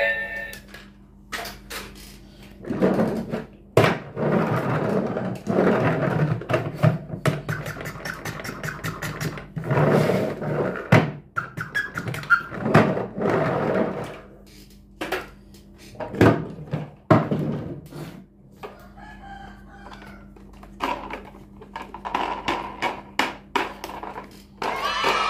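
Plastic toy trains handled and moved about on a wooden tabletop: many sharp clicks and knocks, with stretches of scraping and rattling as they are pushed along.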